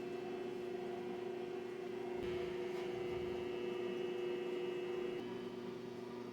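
Steady electrical or mechanical hum made up of several fixed tones, with some of the higher tones dropping away about five seconds in.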